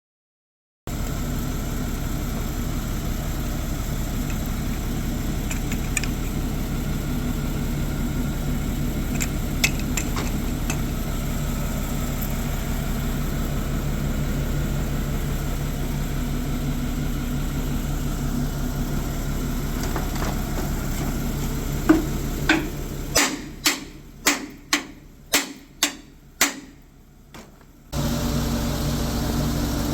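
A machine runs with a steady hum. Near the end it drops away and a quick series of about nine ringing hammer blows on steel sounds, the first ones the loudest; then the machine hum comes back.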